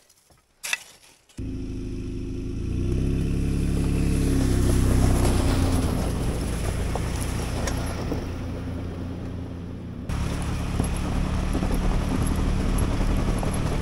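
A 2022 Nissan Frontier's V6 engine running under load while driving. It cuts in suddenly after a near-silent second with one click, rises in pitch as the truck accelerates, then runs steadily.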